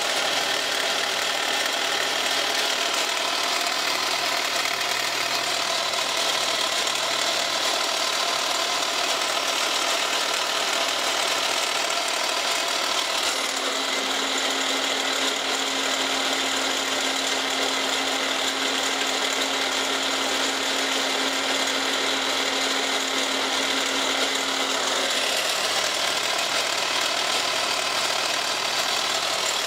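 Milling machine running an end mill through a block of plastic, a steady cutting noise with no pauses. A steady low tone joins in about 13 seconds in and stops about 25 seconds in.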